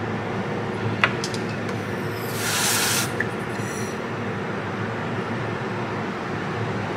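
A short hiss from an aerosol can of freeze spray, about two and a half seconds in and lasting under a second, chilling a MacBook logic board so that the shorted capacitor on the backlight supply rail shows itself by thawing first. A sharp click comes about a second in, over steady background noise.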